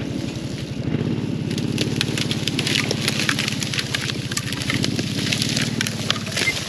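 Side-by-side UTV engine running at a steady speed, with a dense patter of sharp crackling clicks over it from about a second and a half in until near the end.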